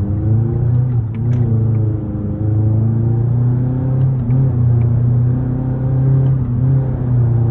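An engine running steadily at low speed, a loud low rumble whose pitch wavers only slightly.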